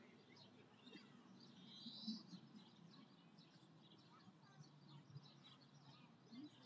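Faint birdsong in a quiet spring park. There are many short high chirps, with a longer, brighter phrase about two seconds in. A low steady background hum runs underneath.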